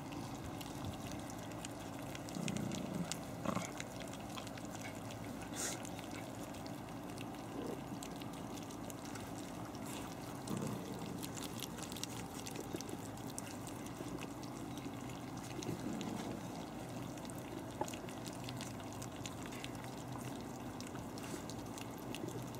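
A litter of Havanese puppies eating soft food from stainless-steel pans: steady wet lapping and smacking, with scattered small clicks and a few louder knocks.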